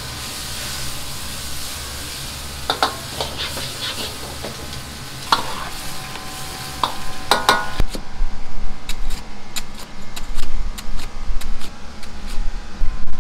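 Wok cooking over a high gas flame: a steady sizzle with a metal ladle clinking and scraping against the wok. About eight seconds in it changes to a cleaver chopping fried chicken on a thick round cutting block, sharp loud chops about three a second.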